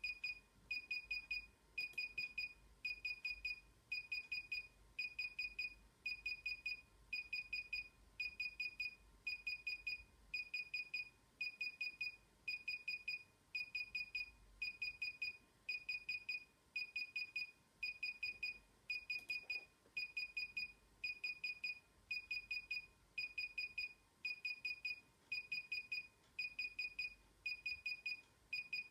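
DJI Inspire 1 remote controller beeping while its firmware installs: quick runs of about four high beeps, repeating about once a second without a break.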